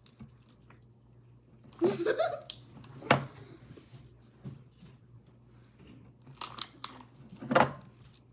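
Homemade glue slime being squeezed and worked by hand, giving a few sharp pops and squelches at uneven intervals. The loudest pop comes about three seconds in.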